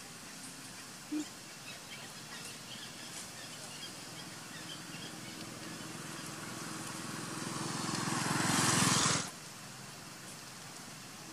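A buzzing drone that swells in loudness over about three seconds and then cuts off suddenly, over faint outdoor ambience with a few small chirps.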